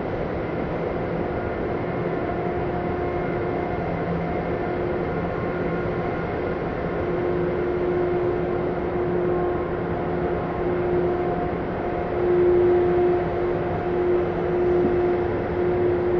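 Electric freight train running past: a steady rumble of wheels on rail with a steady hum over it, growing louder about twelve seconds in.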